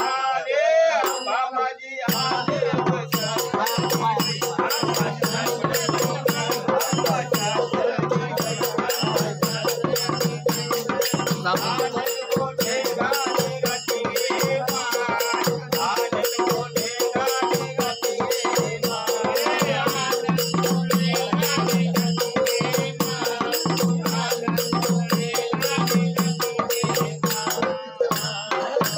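Gondhal devotional folk music that starts about two seconds in: fast, even percussion with jingling, rattling strokes over a steady held tone and low sustained notes.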